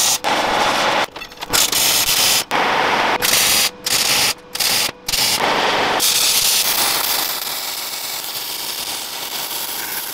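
MIG welding arc sizzling in a string of short welds with brief breaks between them, then a steadier, somewhat quieter run of welding over the last few seconds, as round steel stock is welded onto the edge of a steel sheet.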